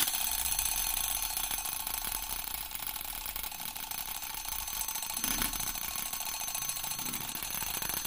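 Homemade door alarm going off: a spoon whirled by a small 9 V toy DC motor clatters against an upturned stainless-steel bowl in a rapid, continuous metallic ringing, like an alarm-clock bell. The alarm has been triggered by the door opening, which pulled a wooden stick out of a clothes-peg contact switch and let the motor run.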